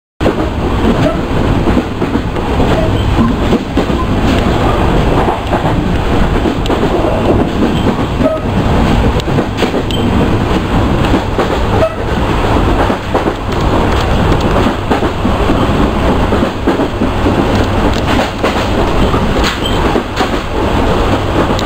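Benapole Express passenger train running at speed: a steady loud rumble with a quick, irregular clatter of wheels over the rail joints. The sound cuts in suddenly at the start.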